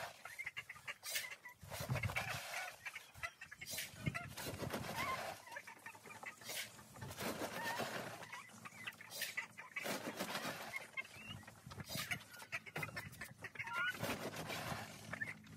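Laying hens clucking, mixed with crackling rustles and handling noises from woven plastic feed sacks being gripped and moved.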